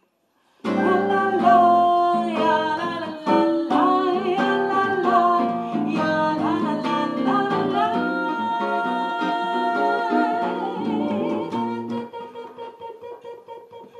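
A band playing live, led by plucked guitar. It starts abruptly about half a second in, then eases into long held notes and grows softer near the end.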